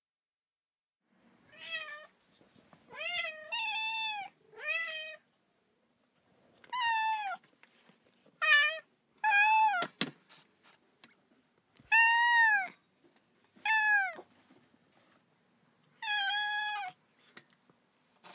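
Cat meowing: about ten separate meows, each rising then falling in pitch, with short pauses between them. There is one sharp click about ten seconds in.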